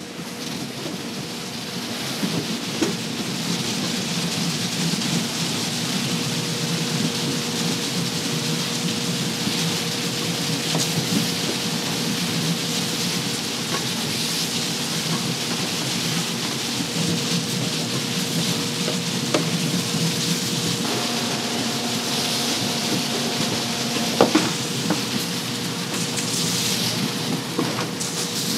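Water spraying hard from rows of jets onto taro roots in a washing trough, a steady rain-like rush, with a steady machine hum underneath. One sharp knock late on.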